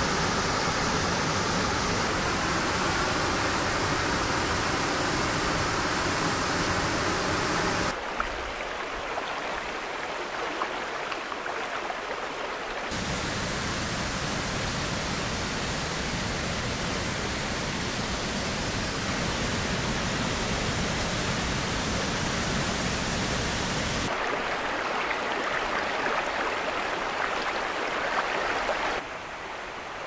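Steady rushing of a mountain river: water pouring over a small waterfall and running over rocks. The sound changes abruptly several times, now fuller with a low rumble, now thinner and hissier.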